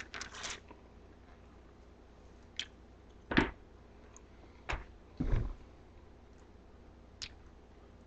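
A banana being handled and eaten: a handful of short, soft squishy sounds of peel and chewing, spaced a second or two apart.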